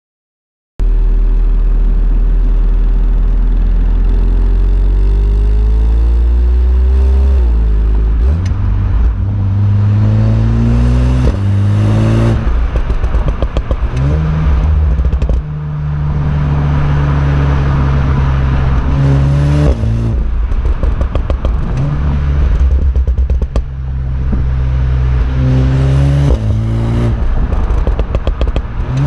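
VW Golf 7R's turbocharged 2.0-litre four-cylinder, heard at the quad exhaust tips while driving. The engine revs up through several quick gear changes, then crackles and pops on the overrun each time the throttle is lifted: the 'Schubblubbern' overrun burble.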